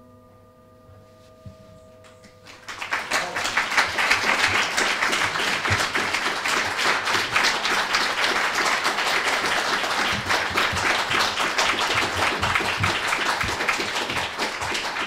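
Metal singing bowls ringing on steadily as they fade. About three seconds in, an audience breaks into applause, which goes on loudly to the end.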